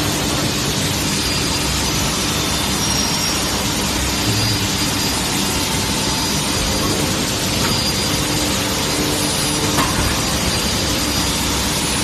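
Aluminium billet heating furnace and hot-shear line running: a loud, steady mechanical noise with a low steady hum in it, and a light knock near the end.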